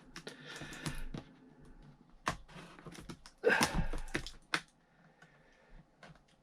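A cardboard box being opened and handled by hand: scattered clicks and taps of the flaps and contents, with a louder rustling scrape about three and a half seconds in, then it goes quiet.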